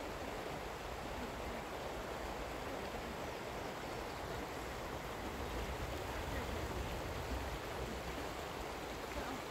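Steady rushing of a creek flowing over rocks, with an uneven low rumble underneath.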